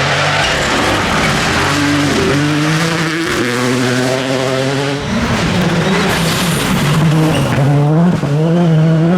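Rally car engine revving hard, its pitch climbing and dropping several times, over a rushing noise of tyres on a gravel stage.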